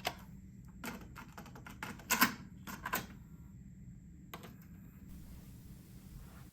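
Several sharp, irregular clicks and taps of controls being operated, about five in four seconds, over a low steady hum that cuts off about five seconds in.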